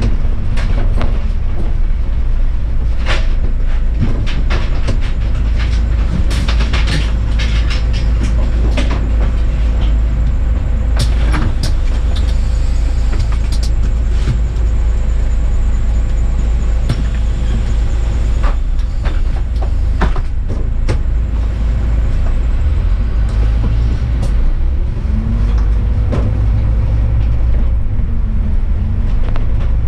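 Bus driving along: a steady heavy low rumble of engine and road noise. Scattered rattles and clicks are thickest in the first half. Near the end, a faint whine rises in pitch as it picks up speed.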